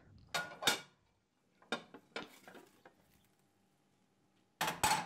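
A non-stick frying pan and a plate knocking and clinking together as the pan of potstickers is turned over onto the plate. There are several short knocks, the loudest just after the start and near the end.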